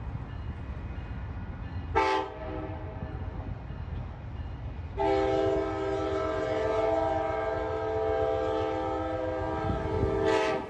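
Amtrak diesel locomotive's multi-chime air horn: a short toot about two seconds in, then one long steady blast from about five seconds in.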